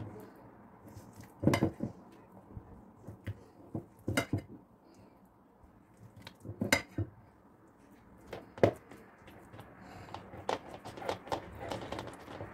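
A spatula scraping thick pâté out of a glass bowl and knocking against the bowl and a plastic funnel on a glass jar: about five sharp clinks and knocks a second or two apart, then lighter, quicker taps near the end.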